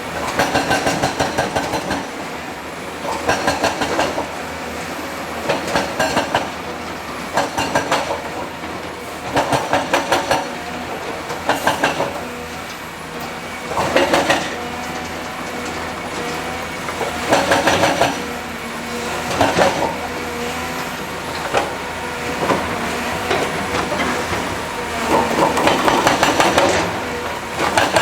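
Excavator working: its engine runs steadily under repeated bursts of rapid metallic clanking, each lasting about a second and coming every couple of seconds.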